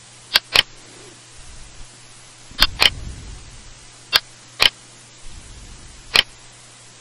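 Computer mouse button clicking: about seven short, sharp clicks, some in quick pairs, with faint low rumbling from the mouse moving between clicks, over a steady hiss.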